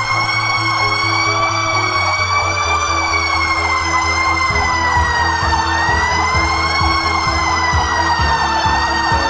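Fire truck siren wailing, its pitch slowly rising and falling every few seconds, over a steady low hum.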